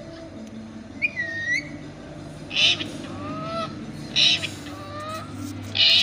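Indian ringneck parakeet calling: a rising-then-falling whistle about a second in, then three short harsh screeches about a second and a half apart, with softer whistled glides between them.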